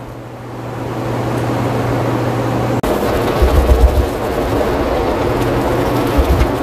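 Water running steadily from a grooming tub's spray hose as a dog is bathed, with a steady low hum under it for the first few seconds. A few dull low thumps come about three and a half and six seconds in.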